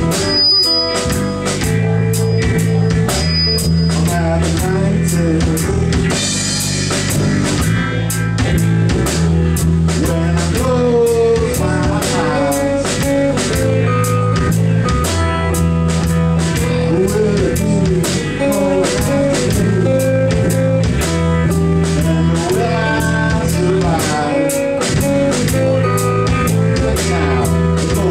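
A live rock band plays an instrumental passage: guitars over a steady drum-kit beat, with a bent guitar note now and then.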